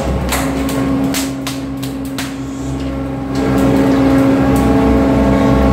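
Steady hum of the fishing boat's engine, louder from about three seconds in, with a quick run of knocks and thuds in the first two seconds from the freshly landed yellowfin tuna being handled on the deck.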